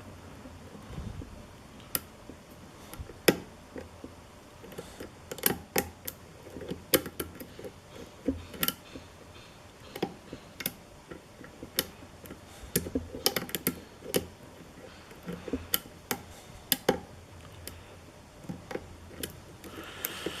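Lock pick and tension wrench working the pin stack of a challenge lock: irregular small clicks and taps, some sharper than others, sometimes several in quick succession, as the pins are probed one by one and pushed toward their set position.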